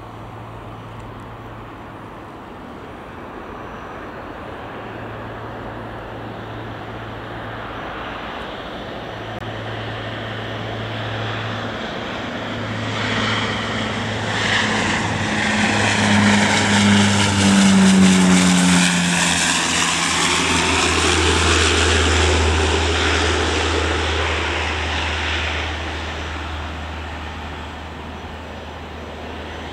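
Twin-turboprop regional airliner passing close on its landing approach, gear down. The propeller and engine sound builds to a peak about two-thirds of the way through, falls in pitch as the aircraft goes past, then settles into a lower steady drone that fades as it rolls down the runway.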